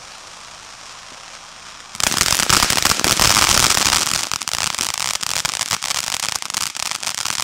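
Consumer firework fountain (Phantom H-239 Star Spangled Spectacular Fountain) spraying with a steady hiss. About two seconds in it suddenly turns loud, breaking into dense crackling as its crackling stars fire, and the crackling goes on to the end.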